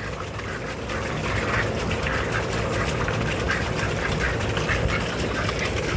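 Ducks dabbling in a small pool of water for worms: a busy, irregular patter of bills slapping and slurping at the water with small splashes.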